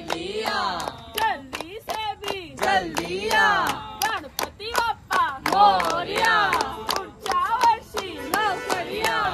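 A group of people singing together with steady rhythmic hand-clapping, about three claps a second.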